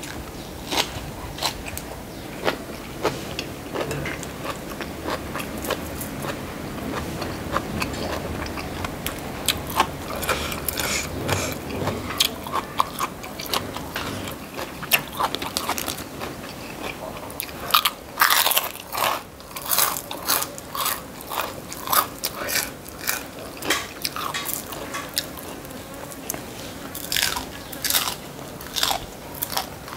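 Close-up chewing and crunching of food eaten by hand: a raw cabbage leaf and crisp fried fish. The short, sharp crunches come thick and fast in the second half.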